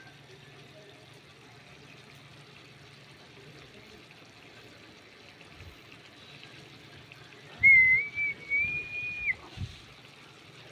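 A faint steady hiss, then about two-thirds of the way in a loud, high whistle lasting under two seconds that steps up in pitch, with several dull thumps around it.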